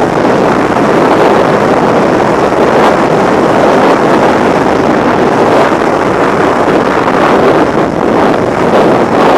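Loud, steady rush of freefall wind buffeting the camera's microphone at terminal velocity.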